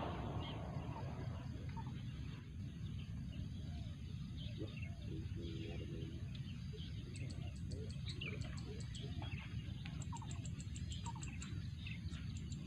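Birds chirping with short scattered calls, and two runs of a fast high-pitched ticking trill about seven and ten seconds in, over a steady low rumble.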